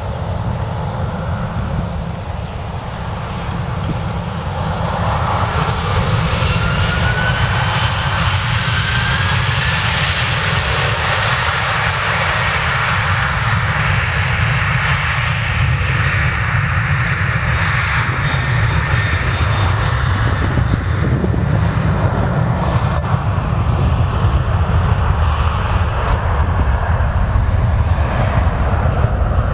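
Boeing 737-700's CFM56-7B turbofan engines at take-off power. About five seconds in, a whine rises in pitch, then the engines settle into a steady loud jet roar as the airliner accelerates down the runway.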